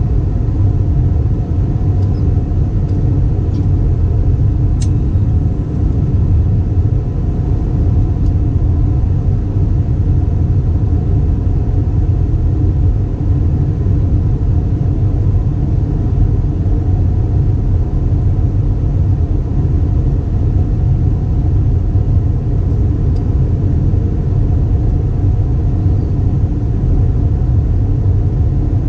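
Steady cabin rumble of an Airbus A320 in flight: the engines and the airflow make an even, loud, low drone with a faint steady hum above it, and a small click about five seconds in.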